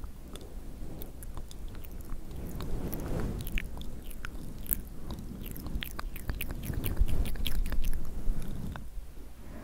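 Close-miked ASMR mouth sounds made into a furry microphone cover: a run of small wet clicks over a muffled low rumble, which grows louder about seven seconds in.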